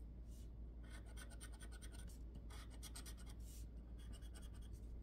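Scratch-off lottery ticket being scratched with a hand-held scraper: faint runs of quick scraping strokes that start about a second in and come in three or four bursts.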